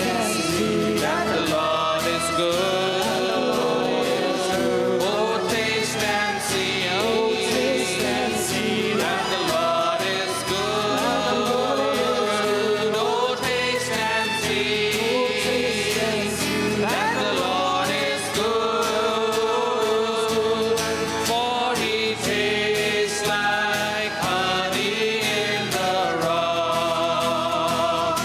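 Church worship team singing a Christian worship song: several voices together over guitar and keyboard, with a steady beat.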